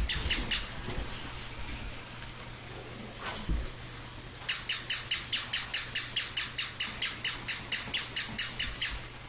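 Small battery-operated toy puppy yapping in a fast, even series of high-pitched electronic yips, about four or five a second. The yapping stops about half a second in and starts again about halfway through for some four seconds more.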